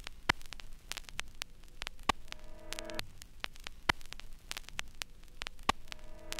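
Looping soundtrack of crackling static, with a louder sharp click about every two seconds and a short pitched chord around the middle.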